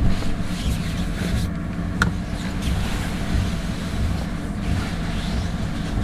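Steady low hum of a Chinese diesel heater running in the truck bed, with the rustle of a sleeping bag as someone shifts about and climbs out of it. A single sharp click about two seconds in.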